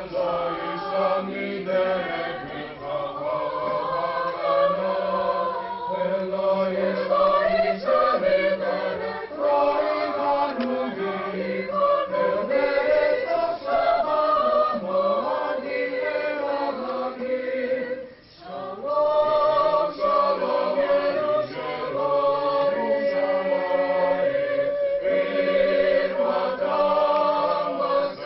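Mixed choir of women's and men's voices singing in long held chords, with a brief pause about two-thirds of the way through.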